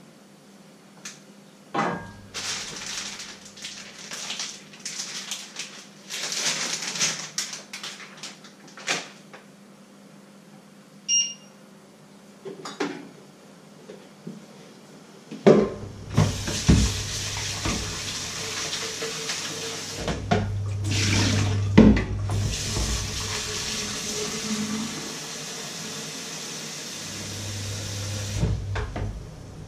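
Kitchen handling noises, rustling and clatter, with a short beep, then tap water running steadily into a plastic measuring jug in a stainless-steel sink for about thirteen seconds, with knocks of the jug and dishes against the sink.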